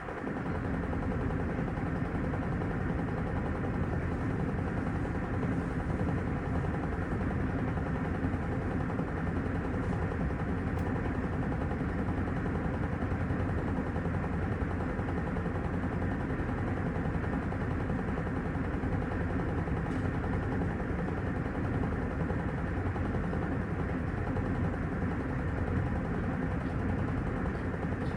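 Panasonic top-loading washing machine running, a steady churning with a fast rattle that starts up just after the beginning.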